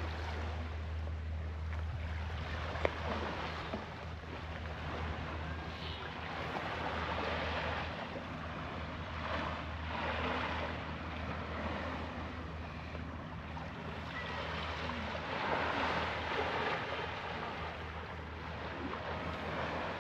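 Wind buffeting the microphone and small waves washing against the harbour edge, rising and easing every few seconds over a steady low hum, with one sharp click about three seconds in.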